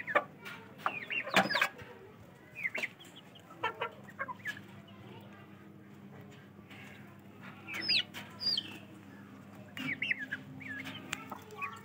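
Chickens clucking and giving short, high squawks in scattered bursts of a few calls at a time.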